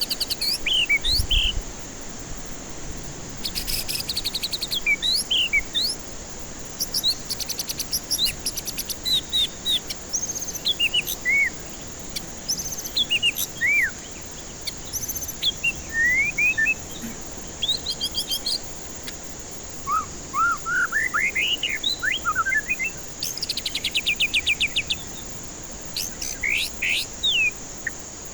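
White-rumped shama (murai batu) singing: clear whistled notes and sweeping phrases broken up by fast, dry rattling trills, repeated many times over a steady background hiss.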